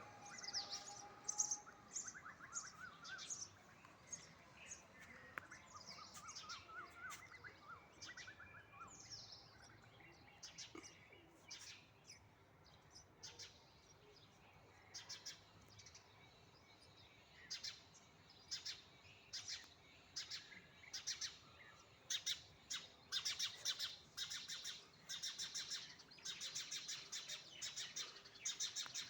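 Small birds chirping: many short, high chirps, scattered at first with a few sliding calls, then coming thick and fast in the second half.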